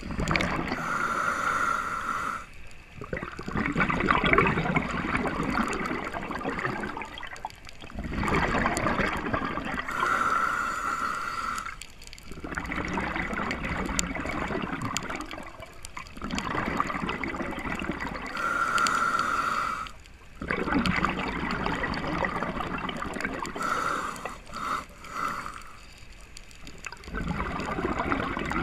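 Scuba diver breathing through a regulator: a short hissing inhale with a faint whistle, then a few seconds of exhaled bubbles rushing and gurgling past the mask. The cycle repeats four times, roughly every seven to eight seconds.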